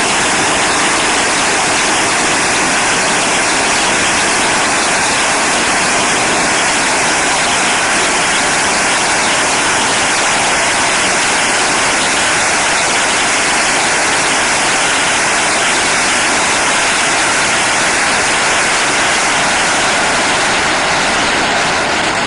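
A massive string of firecrackers going off without a break, the bangs so dense that they merge into one steady, loud crackle.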